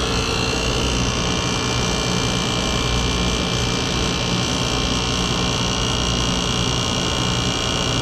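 Commercial refrigeration condensing unit running, its hermetic compressor giving a steady low hum with a steady high whine over it.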